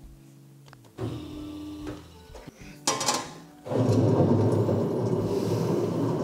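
Metal safety grid of an Escher spiral dough mixer shutting with a sharp clang, then the mixer starting up a little over halfway through and running loudly, churning the bread dough in its steel bowl.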